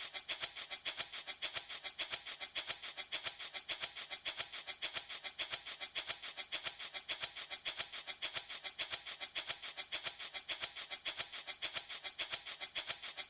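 A handmade rattle shaken in a steady, even rhythm of about five shakes a second, stronger and weaker strokes alternating, giving a bright, hissy rattle.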